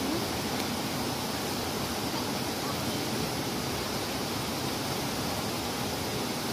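Steady rushing of a river flowing over rocks, with faint voices underneath.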